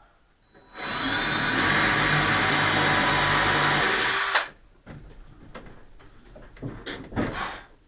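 A power tool's electric motor spins up with a rising whine, runs steadily for about three and a half seconds, then stops. Softer knocks and handling follow.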